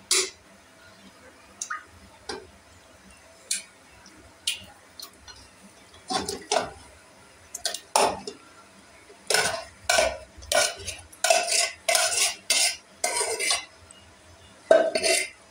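Perforated metal skimmer spoon scraping and clinking against a metal bowl and an aluminium pressure cooker as marinated meat is scraped into the cooker. A few scattered clinks come first, then about nine seconds in a run of quick scrapes, roughly two a second, with a last flurry near the end.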